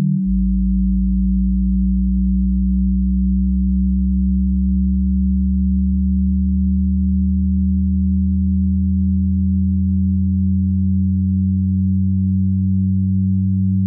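A steady electronic drone of several low, pure tones sounding together. A deeper tone comes in just after the start, and the tones slowly swell and fade against each other.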